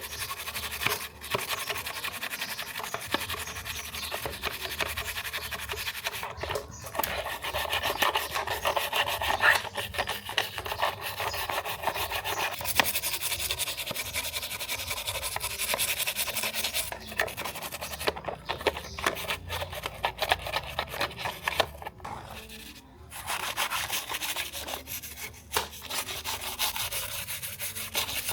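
Rapid back-and-forth rubbing of an abrasive against a part of a 1:24 toy car, a fine rasping that goes on in long stretches broken by a few short pauses.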